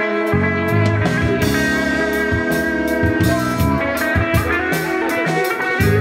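Live rock band playing: electric guitars over bass guitar and drum kit, with steady drum hits. The low bass drops out for a moment near the end before coming back in.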